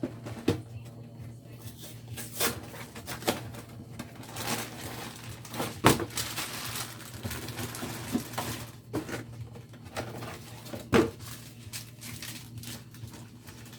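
Food packages being handled and stacked in a fridge freezer: scattered knocks and clunks with plastic rustling, over a steady low hum.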